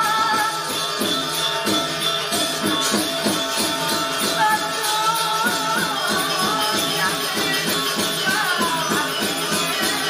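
Balinese gamelan orchestra playing: bronze metallophones and kendang drums beat out a fast, even pulse under ringing tones, with a wavering high melody line rising and falling about halfway through and again near the end.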